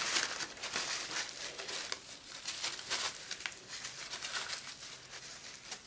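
Irregular rustling and crinkling with many small clicks, as of plastic or gloves being handled.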